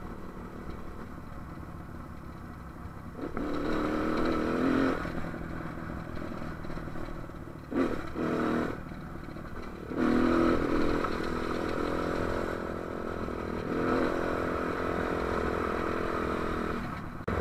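AJP single-cylinder trail motorcycle riding along a dirt road, heard from on the bike. The engine note rises as the throttle opens about three seconds in, again around ten seconds and once more near fourteen seconds, and falls back in between. Wind noise runs underneath.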